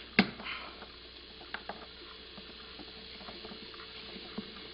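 A sharp click from handling an old tube television set's loose control knob, then a faint steady hiss with a few light ticks as the set warms up.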